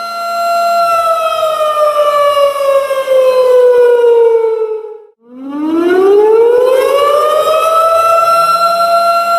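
A siren holds a steady high tone, then slides down in pitch for about four seconds. It cuts out briefly in the middle, then winds back up to the same steady tone.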